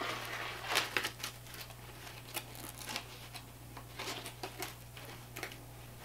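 Nylon tactical pouch being handled: scattered soft rustles and brief scratchy noises of fabric and Velcro as a Velcro insert is worked out of it.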